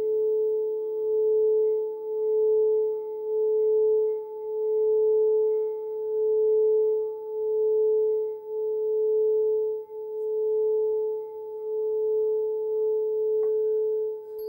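Frosted quartz crystal singing bowl played by circling a mallet around its rim: one steady, pure singing tone with a fainter higher overtone. It swells and dips about every second and a half with each pass of the mallet.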